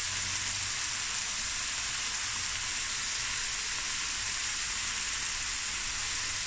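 Chicken and vegetables sizzling steadily in hot oil in a stainless steel pan as sliced peppers, shredded cabbage and carrot, and spring onions are tipped in for a stir-fry.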